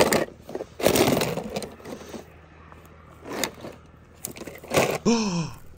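Small hard toy cars being handled: a few sharp knocks and short scrapes at uneven intervals. Near the end a voice draws out a long falling "wow".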